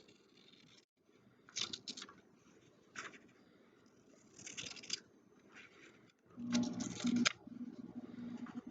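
Scissors cutting paper: a run of separate crisp snips at irregular intervals, then a louder, longer stretch of cutting and paper handling with a low hum beneath it about two-thirds of the way through.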